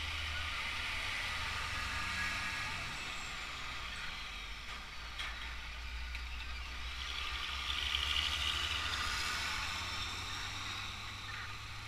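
Heavy trucks driving past on a busy highway: a steady low engine rumble under tyre and traffic noise, swelling about eight seconds in as another truck passes close.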